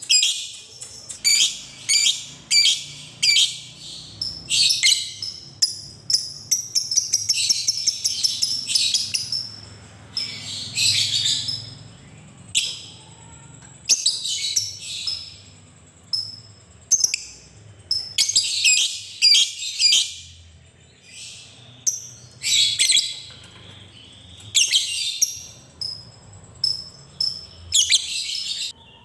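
Lovebird chattering in repeated shrill, rapid bursts, the 'ngekek' chatter that lovebird keepers train for, with a longer unbroken run about seven seconds in.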